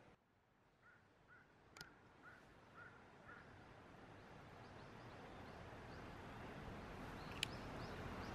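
A bird calling: a quick run of about six short calls, half a second apart, with a sharp click among them. The steady outdoor ambience grows louder, and a second sharp click comes near the end.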